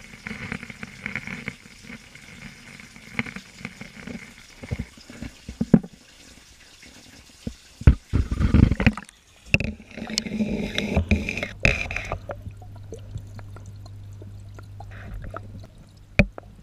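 Water sloshing and splashing in a turtle tank, with a loud burst of splashing about eight seconds in. The sound then turns muffled, as if heard under water, with a steady low hum and scattered sharp clicks.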